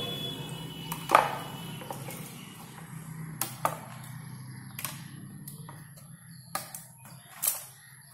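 About half a dozen sharp, separate clicks as nylon cable ties are handled and their tails snipped off with cutters. A faint low steady hum runs underneath.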